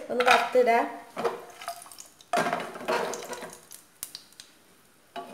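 Cashew nuts sizzling as they hit hot oil in a saucepan: a hiss that starts suddenly about two seconds in and fades away, with a single clack of cookware near the end.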